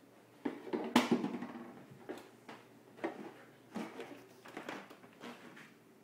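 Plastic soda bottle with ice cubes inside being batted and knocked about on a wooden floor by a puppy: irregular knocks and rattles, the loudest about a second in, then smaller knocks.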